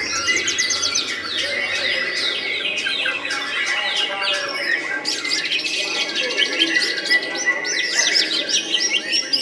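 Several caged white-rumped shamas singing at once: a dense tangle of rapid trills, whistles and chattering notes.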